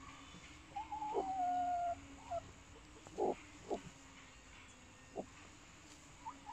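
Nesting hens in a laying crate: one gives a drawn-out, slightly falling call about a second in, followed by a few short, sharp clucks.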